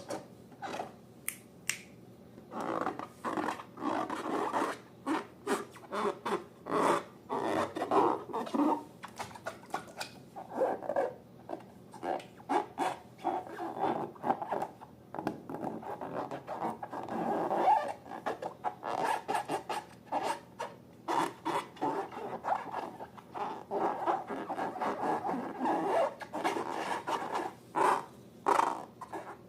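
Slime being worked by hand: a quick, irregular run of short sticky squelches, crackles and scrapes.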